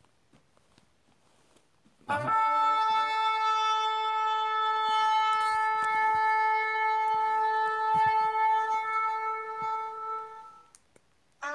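A shofar blown in one long, steady blast of about eight seconds, starting about two seconds in after a near-silent pause. A second blast begins right at the end.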